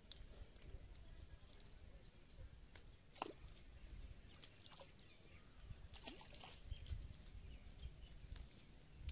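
Faint rustle and scattered light clicks of a cast net being gathered up and sorted by hand, over a low wind rumble, with a few short falling chirps.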